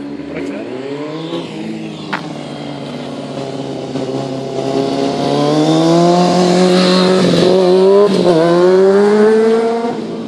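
Motorcycle engine revving hard, its pitch climbing slowly and held high for several seconds, with two brief dips in the middle, then falling away near the end.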